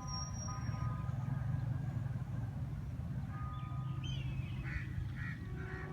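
Steady low rumble of a waiting diesel locomotive, with birds chirping a few seconds in and a train horn starting to sound near the end.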